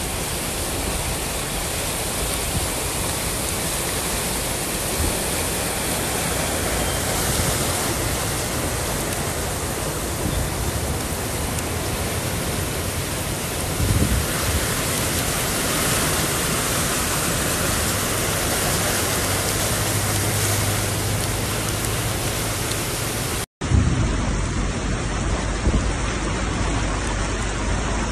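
Steady rushing and splashing of deep floodwater and heavy rain as vehicles wade through a flooded street, with a louder surge of splashing about halfway through. The noise drops out for an instant about two-thirds of the way through and carries on duller, as from a different recording.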